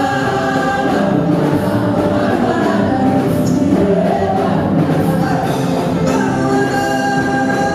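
A gospel praise band playing live, with a group of singers singing together in harmony over the instruments, loud and continuous.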